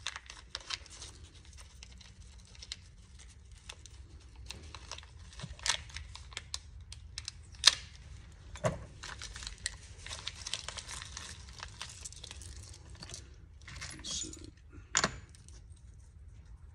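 Small clear plastic hardware bag crinkling and tearing as it is worked open by hand, with a few sharper clicks, the loudest about eight seconds in.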